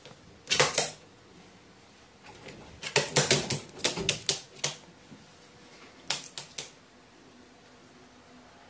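Pet crow making short, sharp clicking sounds: a brief burst about half a second in, a quick irregular run of clicks about three seconds in, and a few more about six seconds in.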